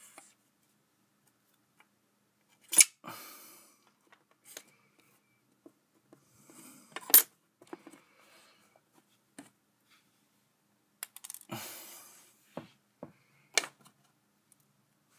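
Hands handling small hard objects on a tabletop: a few sharp clacks spread well apart, the loudest about a third of the way in and near the middle, with rustling and scraping between them.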